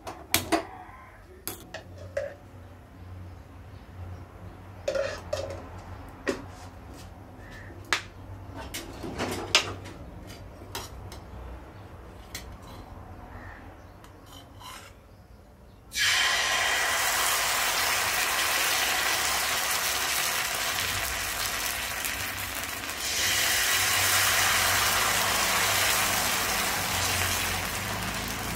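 A few sharp clicks and light clatter of kitchen utensils, then about halfway through a loud, steady sizzle starts suddenly on the hot iron dosa tawa and grows louder again near the end as the dosa batter cooks.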